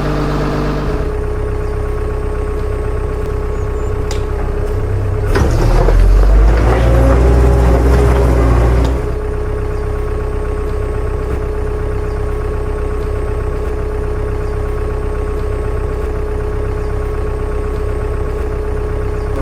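Vehicle engine idling steadily, with a louder, rougher stretch of about three and a half seconds starting about five seconds in.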